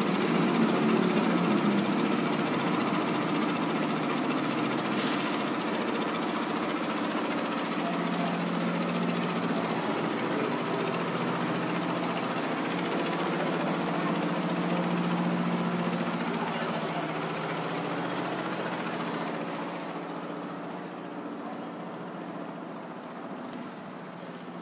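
Street traffic: engines of passing motor vehicles making a steady din with humming engine tones that swell and fade, dying down over the last few seconds.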